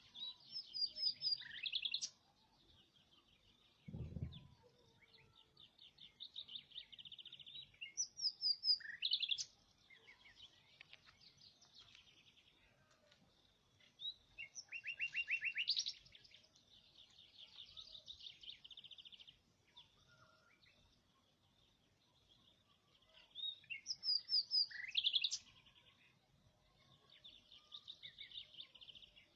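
A songbird singing: bursts of fast, high trills about two seconds long, repeated every several seconds, with softer trilling between them. A single low thump comes about four seconds in.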